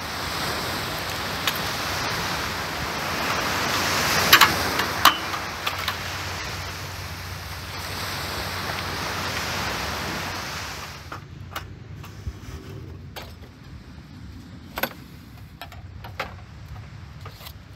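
Gulf surf washing steadily onto the beach, with a few sharp clicks as a folding beach chair and umbrella are handled. About eleven seconds in the surf gives way to a quieter scene with scattered light knocks and clicks.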